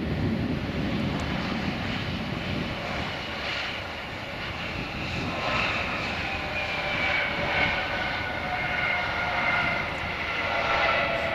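Embraer 170-200LR airliner's twin turbofans on the landing roll: a broad jet rumble as it touches down, then from about halfway through a whine that falls steadily in pitch as the engines wind down.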